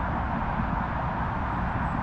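Steady distant rumble of unseen traffic, like a train going by.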